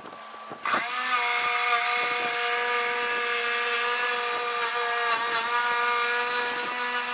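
Power saw cutting along the edge of a wooden worktop panel, its motor whining at a steady pitch. It starts up under a second in and runs evenly without slowing.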